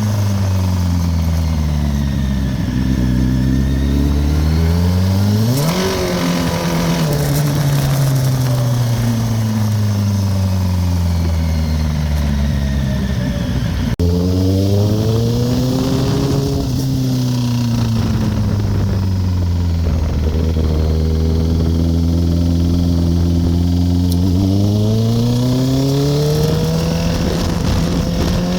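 2008 Kawasaki ZX-10R's inline-four engine running and being revved up and down several times, with a quick sharp blip of revs about six seconds in and an abrupt break about halfway. The bike is making a knocking noise whose cause the owner is trying to find.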